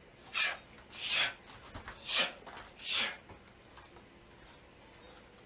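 Four short, forceful hissing exhalations, about a second apart: the sharp breaths pushed out with strikes while drilling Muay Thai elbow and knee combinations.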